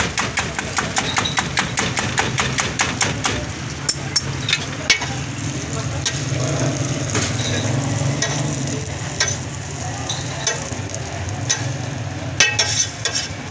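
Eggs being beaten in a steel bowl, the utensil clinking against the bowl about four times a second for the first few seconds, then slowing to a few scattered clinks. Under it, shami patties sizzle steadily in oil on a large flat steel griddle.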